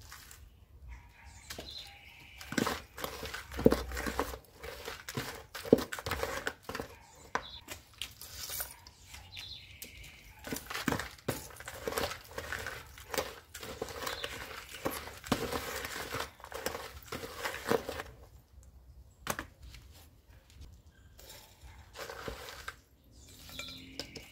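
Potting substrate being poured and scooped around terracotta pots: a gritty crunching and scraping of soil, with a small trowel scratching and knocking against the clay. The handling is dense for most of the stretch and turns into a few separate scrapes and knocks near the end.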